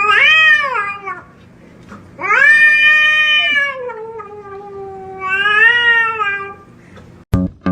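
Domestic cat meowing in three long, drawn-out calls, each rising and then falling in pitch. Music starts just before the end.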